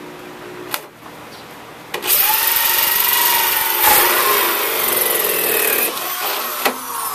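Corded drill driving a 2¾-inch hole saw, run in reverse, cutting through PVC pipe for about four seconds, starting about two seconds in. Before the cut, only the steady noise of a greenhouse fan.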